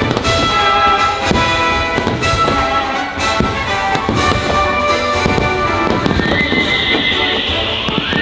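Fireworks bursting in rapid, irregular bangs over loud orchestral patriotic music with brass. About six seconds in, a steady hiss rises under the music.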